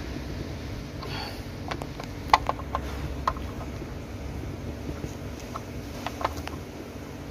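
Scattered light clicks and taps of power cables and a screwdriver being worked into a car audio amplifier's terminal block, in two small clusters, over a steady low hum.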